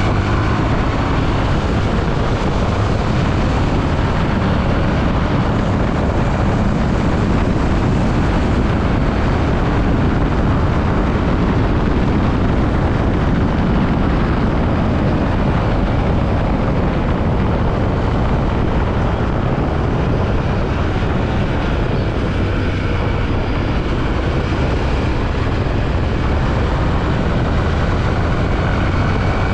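Yamaha WR155R trail motorcycle being ridden, its single-cylinder engine running steadily under a heavy, even rush of wind and road noise.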